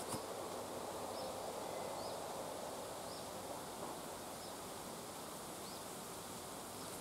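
Quiet countryside ambience: a steady soft hiss of air and leaves, with faint, short, high chirps about once a second and a small click at the very start.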